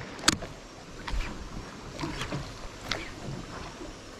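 Water slapping against the hull of a small fishing boat in short, irregular splashes, with one sharp knock about a third of a second in.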